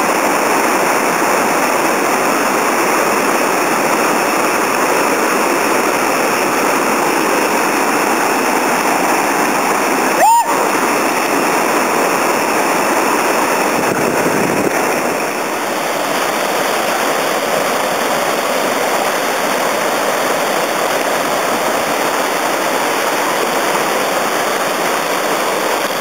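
Whitewater river rapids rushing in a loud, steady roar of water. About ten seconds in there is one brief, sharp sound with a short rising pitch.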